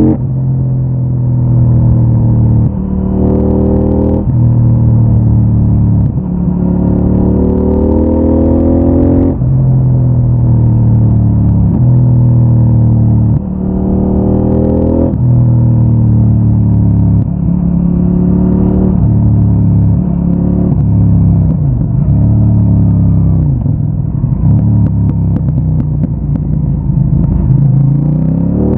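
CFMOTO 800NK Advanced's parallel-twin engine through its stock exhaust, accelerating through the gears: the pitch climbs and drops back at each upshift several times. Later it slows with the pitch falling through downshifts, then climbs again near the end.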